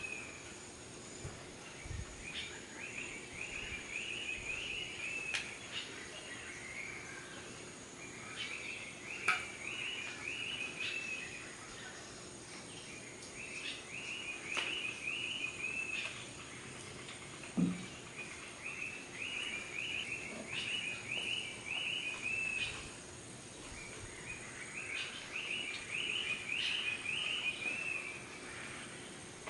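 Tropical jungle ambience: an animal call made of a quick run of repeated high notes, each run lasting two to three seconds, recurs about every five to six seconds. Behind it is a faint steady high tone, with scattered small clicks.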